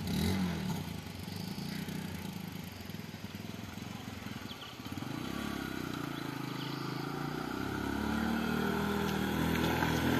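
Motorcycle engine running as the bike rides up toward the listener, getting steadily louder over the second half.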